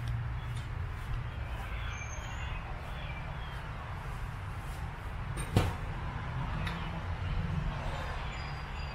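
Outdoor ambience: a steady low rumble with a few faint bird chirps, and a single sharp click or knock a little past halfway.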